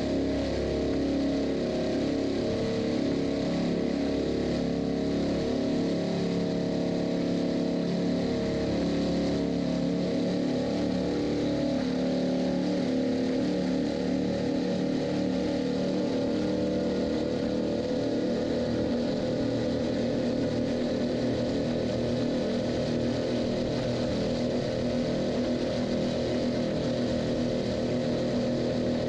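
Motorboat engine running steadily as the open fibreglass boat cruises over choppy water.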